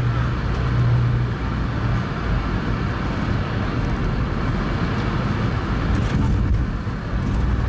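Steady cabin noise inside a Boeing 717 rolling fast along the runway: engine and rolling noise heard through the fuselage, with a low hum that fades about a second and a half in.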